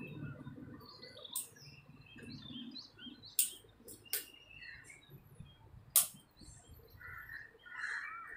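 Sharp clicks of a hose quick-connect coupling being worked onto the brass pump inlet of an electric pressure washer: four separate clicks, the loudest about six seconds in. Small birds chirp faintly in the background.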